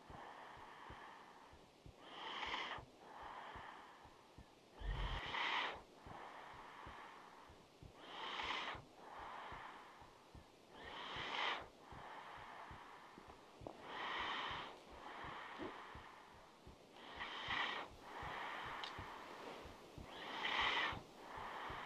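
A person's slow, heavy breathing, as of someone asleep: about one breath every three seconds, each a stronger rush of air followed by a softer one.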